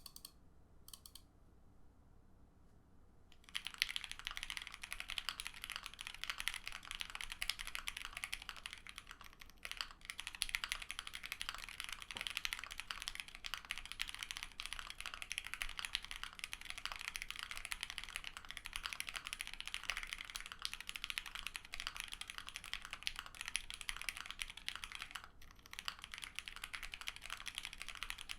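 Fast continuous typing on an ai03 Vega mechanical keyboard with a full POM plate, lubed Lavender linear switches and GMK keycaps. A few separate keystrokes come first, then steady rapid typing starts about three and a half seconds in, with a short pause near the end.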